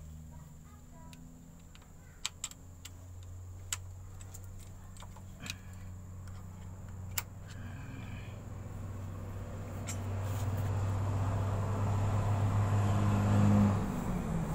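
A vehicle engine runs with a steady low hum. It grows louder over the second half and drops off abruptly near the end. A few sharp metal clicks come in the first half.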